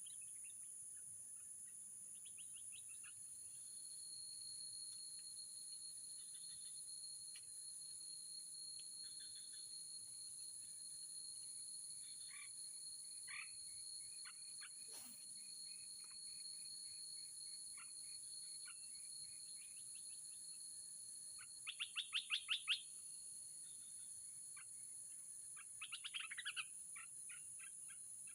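Wild birds chirping and calling in scattered short notes over a steady high-pitched insect drone. The loudest moment is a fast run of about eight notes, each louder than the last, about three-quarters of the way through, followed by a shorter run a few seconds later.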